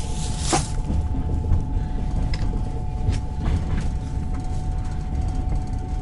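Passenger train running, heard from inside the carriage: a steady low rumble with a constant whine and a few irregular knocks from the wheels and carriage.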